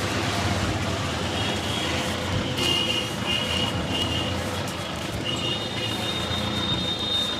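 Street traffic noise: a steady din of passing vehicles, with a high-pitched tone coming and going twice.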